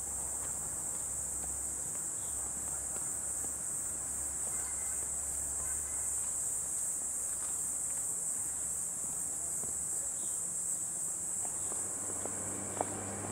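Steady, high-pitched chorus of insects buzzing without a break, with a few light taps near the end.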